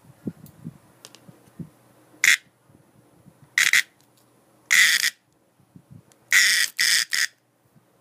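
A cicada giving harsh buzzing distress calls in six short bursts, the longest about half a second, the last three close together near the end.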